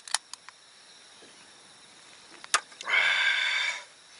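Aluminium beer can, just opened, being handled and drunk from: a few light clicks of the can, then about three seconds in a loud breathy hiss lasting about a second.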